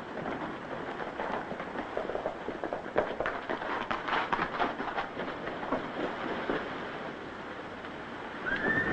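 Several horses galloping, a dense clatter of hoofbeats. A horse whinnies near the end.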